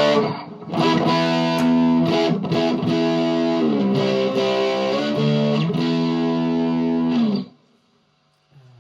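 Electric guitar played through a Behringer OD300 overdrive/distortion pedal into an amp: distorted chords strummed and let ring, with a few chord changes. The playing cuts off suddenly about seven and a half seconds in.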